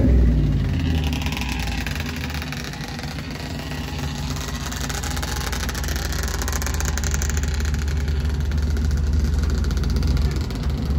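Chevrolet OBS pickup's engine idling steadily, getting slightly louder through the second half.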